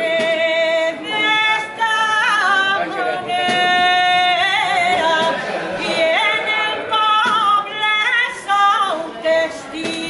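A single unaccompanied voice singing a Valencian albà: long held high notes broken by quick ornamented runs, in phrases separated by short breaths.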